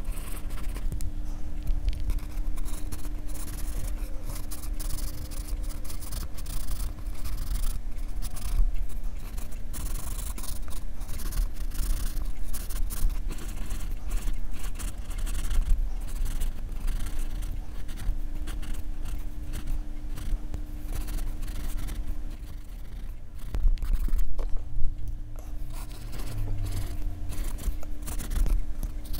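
Graphite pencil scratching on drawing paper in quick, short, repeated shading strokes, with a faint steady low hum underneath.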